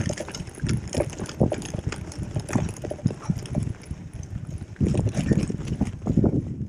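A gravel bike rattling and knocking as it rides over a rough, rutted dirt track, with a steady low rumble of tyres and wind under the irregular knocks; the clatter grows louder about five seconds in.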